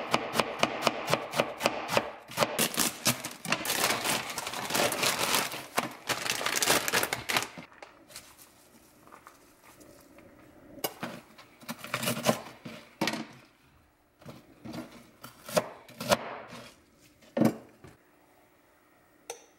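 Chef's knife shredding salad greens on a cutting board in fast, even strokes, about five a second, for the first seven seconds or so. After that come scattered soft knocks and rustles as the shredded greens are handled.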